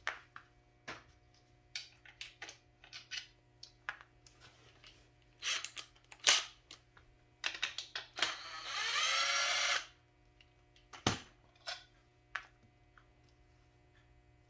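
Cordless driver with a socket spinning out a bolt from an engine cover of a Honda GL1200 Goldwing for about a second and a half, its motor pitch rising as it spins up, about eight seconds in. Around it come sharp metal clicks and knocks as the tool and socket are fitted to the bolts and the cover is handled.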